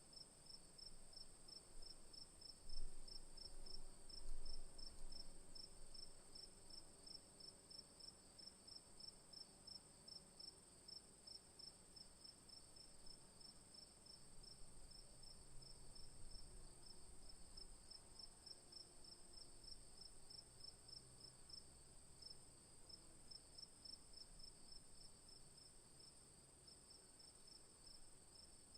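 Crickets chirping: one steady high trill with a second, pulsing chirp repeating about three times a second. Two brief low rumbles about three and four and a half seconds in.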